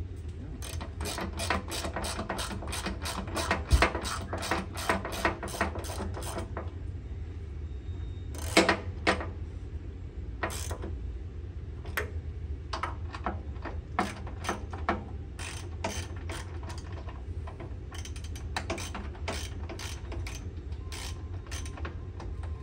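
Hand ratchet wrench clicking as bolts are run down on the mower deck. A quick, even run of about four clicks a second over the first six seconds, then shorter runs of clicks with pauses, and a couple of louder knocks.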